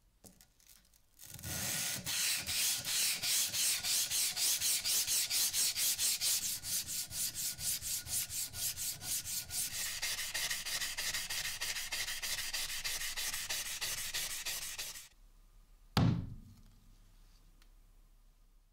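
Sandpaper on a sanding stick rubbed quickly back and forth across the flat face of a steel hammer head, at about four strokes a second, stopping about 15 s in. Near the end comes a single heavy thud with a short low ring.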